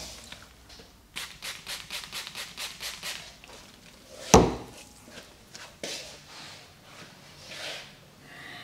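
Hands drumming rapidly on a customer's shoulders and back in a barber's percussive massage, about six strokes a second for a couple of seconds, then one loud sharp hit a few seconds later, with a few softer strokes after it.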